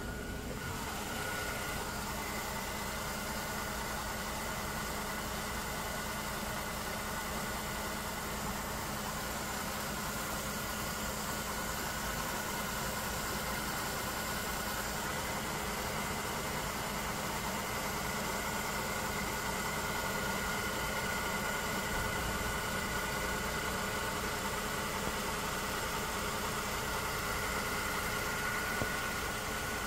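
Mercedes-Benz M272 V6 engine idling steadily, heard from underneath near the crankshaft pulley and accessory belt, with a thin steady high whine running through it.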